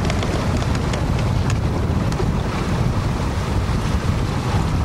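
Wind buffeting the microphone aboard a sailing yacht under way, as a steady low rumble. Water rushes and splashes along the hull beneath it.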